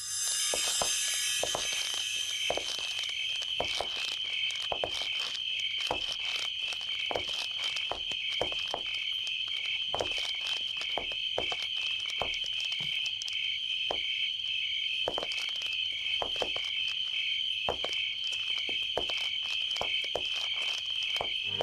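Steady insect chirping, a high trill pulsing a few times a second without a break, with scattered short clicks and taps over it.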